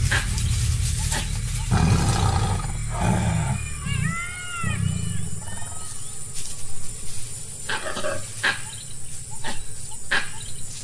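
Tiger growling and snarling as it charges a deer, loudest in the first few seconds. A short high call comes about four seconds in, and sharp cracks and thuds of the chase through the undergrowth follow in the second half.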